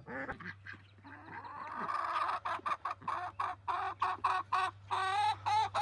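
Chicken clucking: a quick run of short repeated clucks, about four a second, starting about two seconds in and getting louder.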